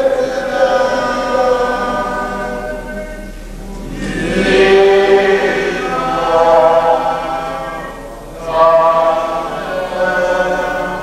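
A group of voices chanting a slow church hymn in long held notes, phrase after phrase, with short pauses between phrases about three and a half and eight seconds in.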